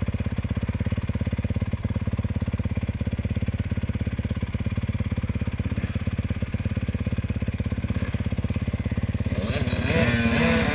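Dirt bike engine idling with a steady, fast low pulse. Near the end a louder dirt bike engine revs up and down over it.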